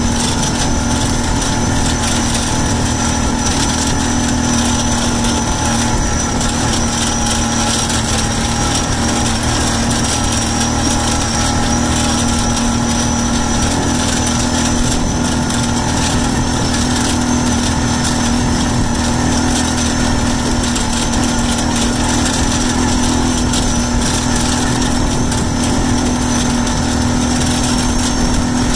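A small vehicle engine running at a steady speed while driving, a constant hum that never changes pitch.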